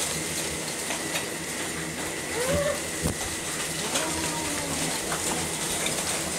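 A swarm of thousands of large beetles in a tree: a dense, steady rain-like hiss with fine ticking, enough like rain beginning that it was taken for rain.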